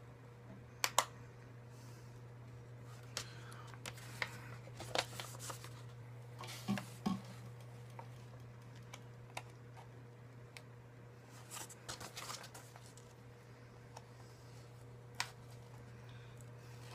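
Hands handling and opening a package: scattered sharp clicks and taps with bursts of rustling, over a steady low electrical hum.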